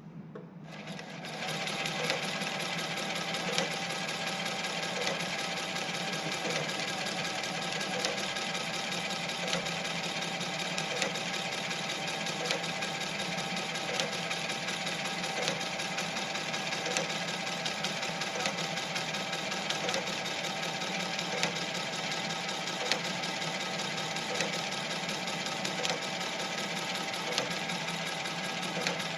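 Shell-stitch overlock sewing machine running steadily after speeding up over the first couple of seconds, with a light regular tick about every second and a half.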